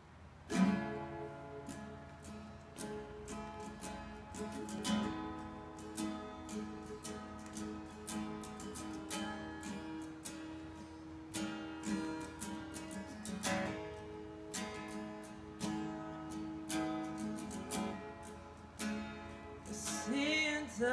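Guitar strummed slowly, about one strum a second, in the instrumental introduction to a song. A singing voice comes in near the end.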